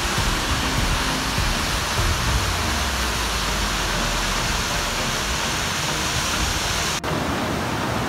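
Waterfall with a heavy, high-pressure flow, its falling water rushing in a steady, dense wash. The sound breaks for an instant about seven seconds in and then goes on the same.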